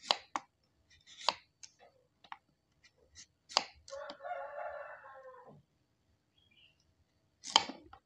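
Knife cutting through a raw carrot onto a wooden cutting board: a few sharp knocks at uneven intervals. About four seconds in, a rooster crows once for a second and a half, quieter than the cuts.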